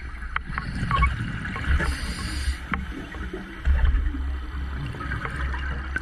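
Underwater sound of a scuba diver's breathing, picked up through an action camera's housing. The regulator hisses on an inhale about two seconds in, and a gurgling rush of exhaled bubbles follows near four seconds, over a low rumble with scattered faint clicks.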